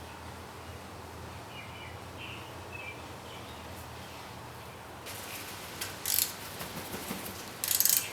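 Faint bird chirps over a low steady hum. About five seconds in, hand-tool clicks and metal clatter start as a bolt is worked loose, loudest near the end.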